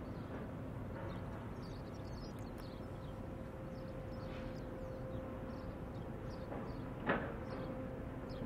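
A container ship's machinery droning: a steady low rumble with a constant hum, and one sharp clunk about seven seconds in.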